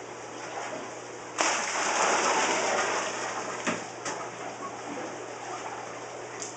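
Aquarium water pouring and splashing into a bucket. It starts suddenly about a second and a half in, runs loudest for about two seconds, then goes on more softly.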